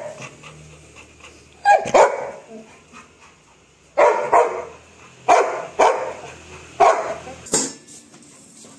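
Dog barking: about eight short barks, mostly in quick pairs, starting about two seconds in.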